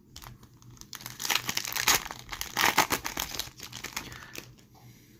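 Crinkling and tearing of a hockey card pack's foil wrapper as it is ripped open and the cards are pulled out, starting about a second in and dying away near the end.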